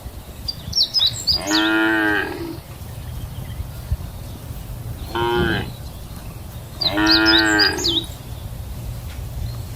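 Cattle mooing: three moos, the middle one shorter than the other two.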